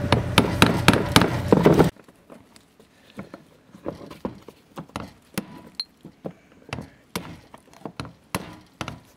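Rusted fuel line quick-connect fittings on a fuel pump module being worked loose and pulled off by hand: a run of small clicks and knocks. For about the first two seconds they sound over a steady low hum, which cuts off suddenly, leaving sparser, quieter clicks.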